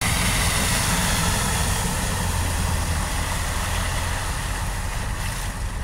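A vehicle's engine running with a steady low hum under a continuous rush of water, as an SUV ploughs through deep floodwater and throws up spray.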